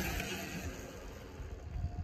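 Sur-Ron Ultra Bee electric dirt bike riding away under hard throttle, its electric motor whine falling slightly in pitch and fading as it recedes, over a low rumble.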